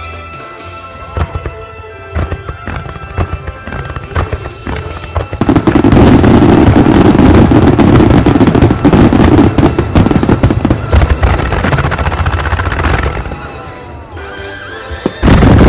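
Starmine fireworks barrage over music. Scattered shell bursts crack for the first few seconds. About five seconds in, a dense, loud volley of rapid-fire aerial shell bursts and crackle follows and lasts about seven seconds, then fades back to the music. Another loud burst comes near the end.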